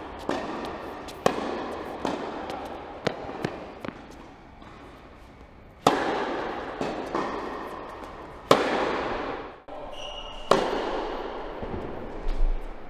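Tennis rally on an indoor court: racket strikes on the ball and ball bounces as sharp cracks, each with a long echo off the hall, the loudest about six, eight and a half and ten and a half seconds in. A brief high squeak comes just after ten seconds.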